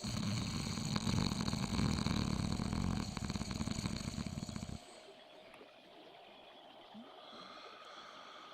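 Loud rattling snore, one long rough breath that cuts off suddenly after about five seconds. A faint ambient soundscape runs underneath.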